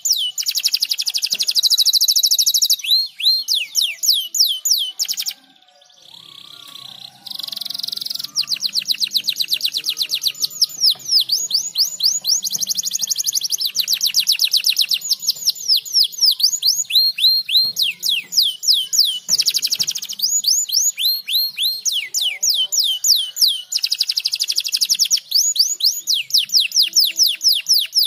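Domestic canary singing: a loud, fast song of rapidly repeated downward-sweeping trill notes, with a brief lull about five seconds in before the trills pick up again.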